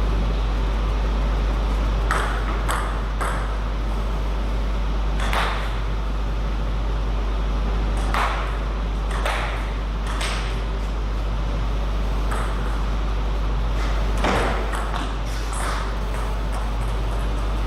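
Table tennis ball being hit back and forth, sharp clicks of the ball on the paddles and table coming in short rallies with pauses between them. A steady low hum runs underneath.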